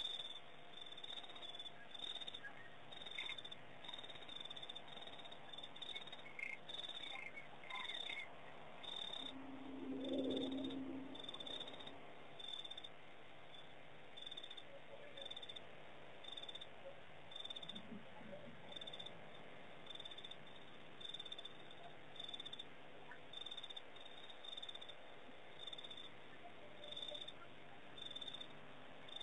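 Night insect chorus: crickets chirping in a regular pulse, about one to two chirps a second, with faint scattered frog-like calls. About ten seconds in, a louder low call sounds briefly.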